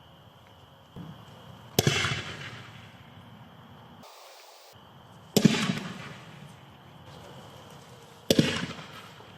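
45 mm smoke mines firing: three sharp launch shots about three seconds apart, each followed by a rush that dies away over about a second.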